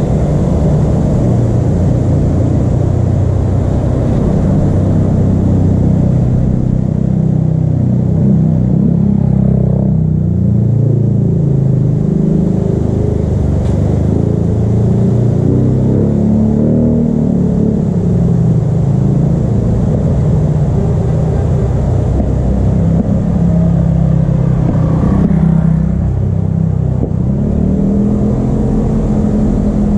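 Motor vehicle engines running on a wet road, their pitch rising and falling as they pass, over a steady low rumble.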